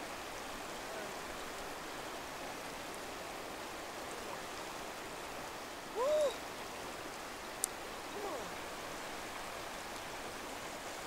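Steady rush of a shallow river flowing. About six seconds in there is a brief rising-and-falling note, and a faint click follows a moment later.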